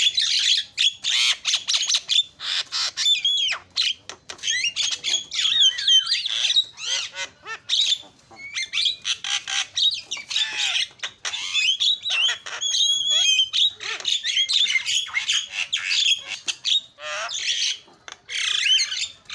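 Javan mynas calling loudly and without let-up in a rapid, varied run of harsh squawks, chatters and whistled gliding notes, with only brief pauses.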